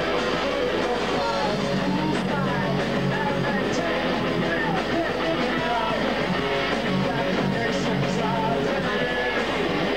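Rock band playing live, guitar-driven, at a steady loud level with no breaks.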